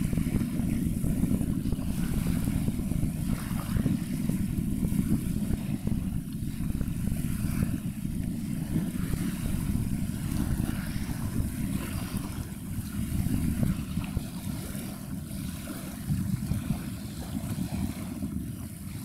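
Wind buffeting an outdoor microphone at the waterside: a steady, gusty low rumble with a faint hiss above it.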